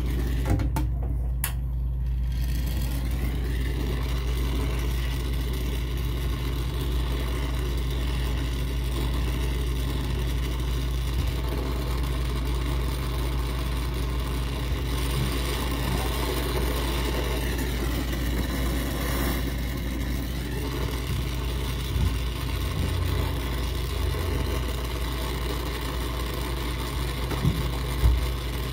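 Brazing torch flame hissing steadily while it heats copper refrigerant line joints, over a steady low machinery hum. A couple of sharp taps near the end.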